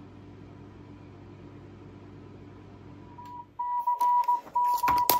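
A faint steady low hum, then about three and a half seconds in, the Retevis MA1 mobile transceiver gives two loud steady beeps of about a second each as keys are pressed on its keypad microphone. There is a sharp click near the end.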